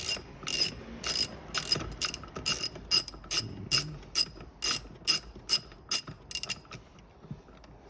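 1/2-inch drive ratchet with a 17 mm socket clicking as it backs off a loosened seatbelt anchor nut: sharp metallic clicks, a few at first, then a quicker run of about four to five a second, stopping shortly before the end.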